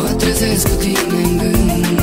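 Background music with a steady drum beat and a melody over held tones.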